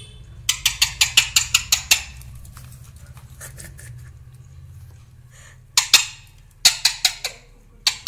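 Alexandrine parakeet giving short, harsh squawks in quick runs, about ten in the first two seconds, then two shorter runs near the end; the bird is angry and aggressive.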